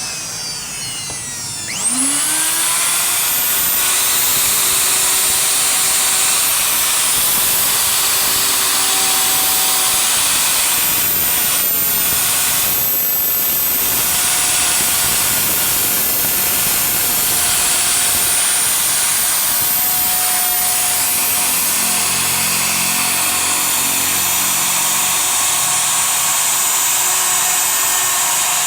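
A high-speed electric power tool winds down with a falling whine, then starts again about two seconds in with a rising whine and runs steadily at full speed on wood.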